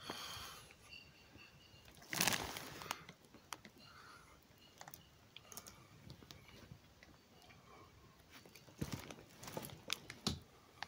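Soft rustling and scratching of fabric as a four-week-old kitten moves about on a blanket. There is a louder rustle about two seconds in and a cluster of short scratches near the end.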